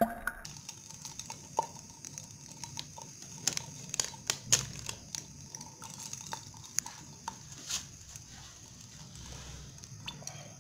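Hot oil crackling around melting chocolate in a glass beaker: irregular sharp pops, the loudest a few seconds in, over a faint steady sizzling hiss.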